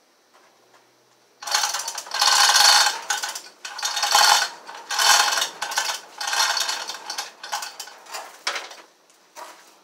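Manual chain hoist being worked by hand: the hand chain is pulled in a run of strokes, clattering, starting about a second and a half in and easing off near the end.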